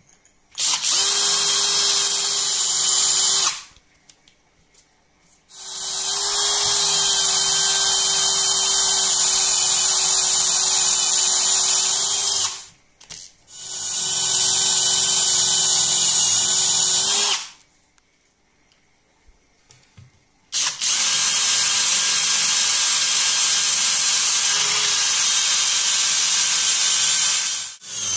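Cordless drill running at full speed, cutting into wood with a carbon steel countersink drill bit. It runs in four bursts of a few seconds each, starting and stopping abruptly with short pauses between.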